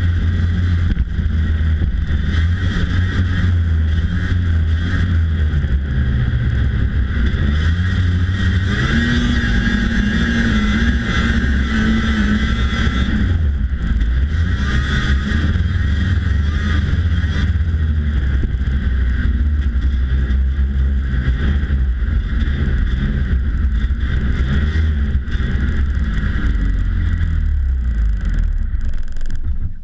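1992 Polaris Indy Lite 340 snowmobile's two-stroke engine running steadily, its pitch rising and falling a few times with the throttle. The sound cuts off abruptly at the very end.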